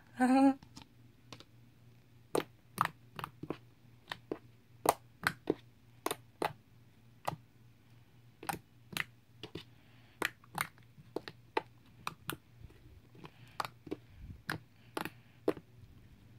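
Fingers poking and squeezing a soft, doughy slime, making sharp little clicks and pops as trapped air bursts, irregular at about two a second.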